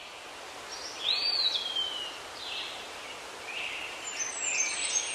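Songbirds calling over a steady outdoor hiss: short high calls throughout, a clear whistled note about a second in that rises and then slides down, and quick high twittering near the end.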